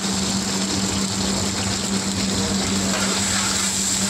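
Cooking in a kadai over a gas stove: a steady rushing hiss with a constant low hum underneath.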